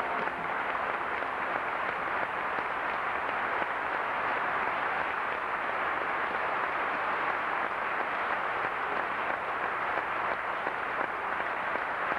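Audience applauding at the end of a song, an even, steady clapping that holds its level throughout.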